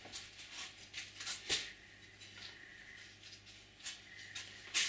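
A few light, scattered clicks and knocks of small objects being handled, over a faint steady low hum.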